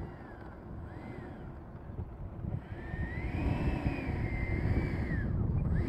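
Electric ducted fan of a 90 mm Stinger RC jet taxiing on the runway after landing. Its whine rises and falls with short throttle blips, then swells longer and louder over the last few seconds. Wind rumbles on the microphone throughout.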